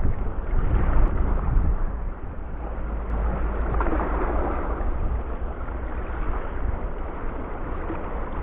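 Wind buffeting the microphone: a steady low rumble, louder for the first couple of seconds, then settling.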